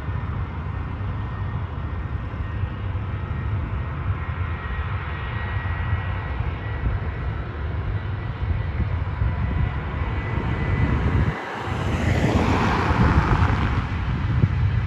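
Distant Airbus A321 jet engines whining faintly on the runway, then spooling up to a louder rush for the takeoff roll about twelve seconds in. Steady wind rumble on the microphone runs underneath.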